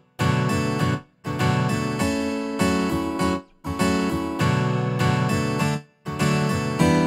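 Background music: acoustic guitar strumming chords, with brief breaks between phrases.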